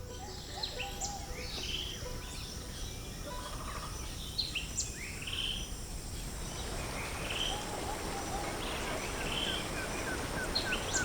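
Several birds calling with short chirps, whistles and sweeping notes. From about halfway a steady hiss builds underneath. Near the end one bird repeats a short note rapidly, about three times a second.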